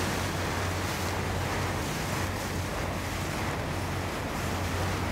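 Tour boat under way: water rushing and splashing along the hull over a steady low engine hum, with wind buffeting the microphone.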